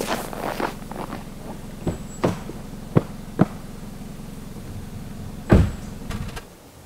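Clicks and knocks from a 2021 Kia Rio being handled, then one heavy thump about five and a half seconds in, over a steady low hum that stops near the end.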